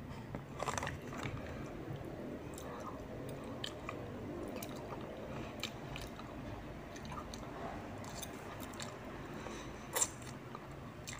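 Close-up chewing of soft chicken noodles, with small wet mouth clicks. About ten seconds in comes a short, louder slurp as a forkful of noodles is sucked in.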